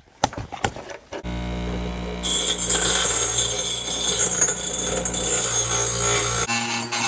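A few handling clicks, then an electric bench grinder's motor starts with a steady hum, and about a second later a loud hiss as metal is ground against the wheel.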